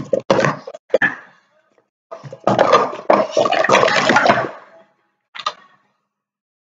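Red plastic sport-stacking cups clattering and sliding together as they are rapidly stacked up and down: quick rattles in the first second, then a dense clatter of about two and a half seconds in the middle. A short slap comes near the end as the hands come down on the timer's touch pads.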